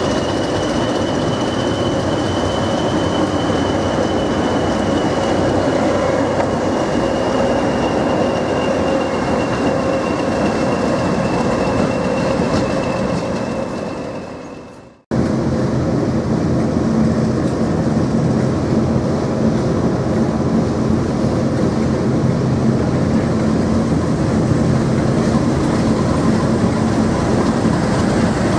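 Class 20 diesel locomotive running beside coaches at a platform, its engine carrying a steady high whine, fading out about halfway. Then Class 50 diesel 50049's English Electric 16-cylinder engine running with a steady low note as the locomotive draws its train in.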